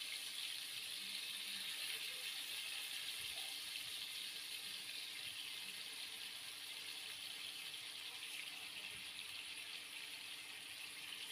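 Yogurt-and-spice-marinated chicken pieces sizzling in hot oil: a steady frying hiss that eases slightly toward the end.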